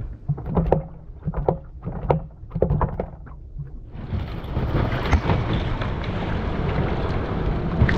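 A quick series of light knocks for the first few seconds. Then, from about four seconds in, a steady rush of water slapping and splashing against a small boat's hull, with wind on the microphone.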